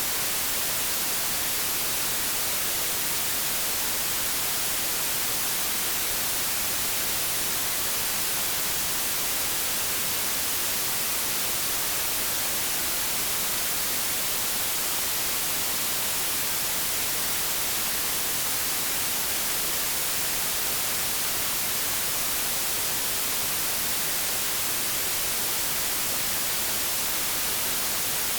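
Steady white noise: an even, unchanging hiss like TV or radio static, brightest in the high frequencies.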